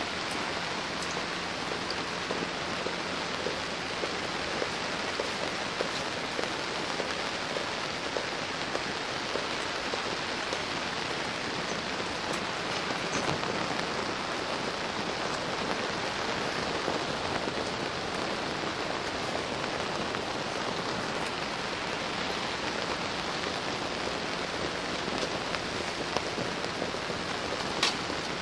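Rain falling on the fabric roof of an inflatable tent, heard from inside: a steady hiss with scattered single drops, and one sharper click near the end.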